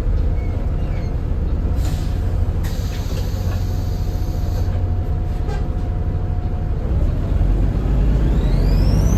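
A Volvo B7RLE bus's six-cylinder diesel engine running with a deep, steady rumble, with a brief hiss of air about two seconds in. Near the end the engine grows louder and the turbocharger whistle rises steeply in pitch as the turbo spools up.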